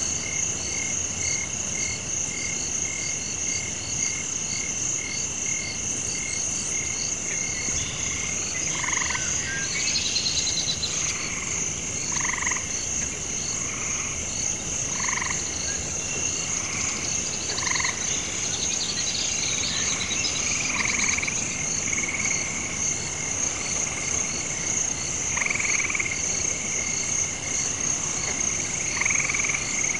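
Night frog chorus: a steady high-pitched trilling with rapidly pulsing calls beneath it, and from about eight seconds in, a louder croak every two to three seconds.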